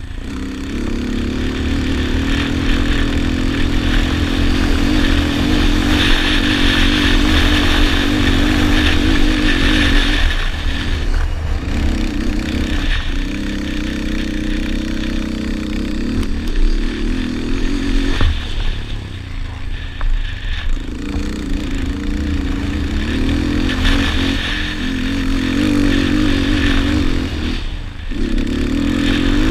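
Yamaha Raptor 250 quad's single-cylinder four-stroke engine under race throttle, its pitch rising and falling as the rider accelerates and backs off, with several short drops off the throttle around a third of the way in, in the middle and near the end. A low rumble runs beneath it.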